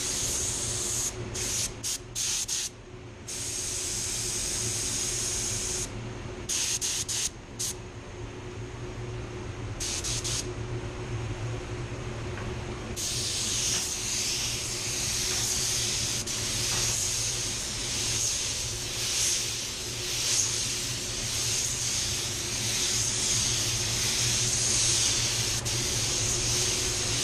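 Mini jet touch-up spray gun hissing as it lays a control coat of silver basecoat at lowered air pressure. It gives several short trigger pulls in the first ten seconds, then sprays almost continuously from about halfway on, over a steady low hum.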